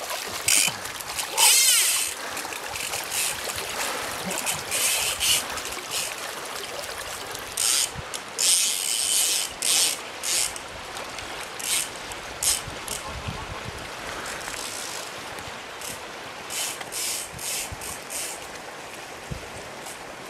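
Fast river rapids rushing steadily, with repeated short splashes of water around a wading angler's legs.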